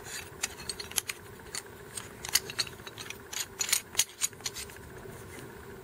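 Irregular light clicks and ticks from handling an inline air pressure regulator: its steel mounting bracket and knurled plastic retaining ring being shifted and turned in the hand.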